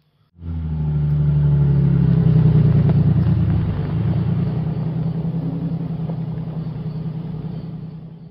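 Engine running steadily with a deep, even hum. It cuts in suddenly about half a second in and fades away near the end.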